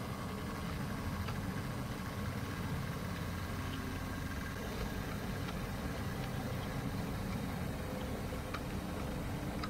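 Model BR Class 08 diesel shunter running slowly along the track: a steady low diesel-engine sound with a faint steady whine, and a few faint clicks from the wheels on the rails.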